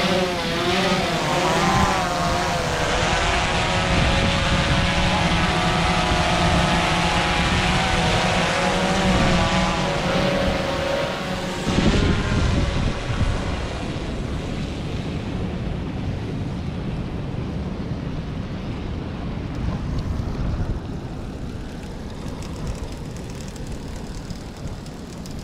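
Swellpro Splash Drone 4 quadcopter's propellers whining as it lifts off and climbs, the pitch of the motors wavering up and down. About halfway through this gives way to a steady rushing noise that slowly fades.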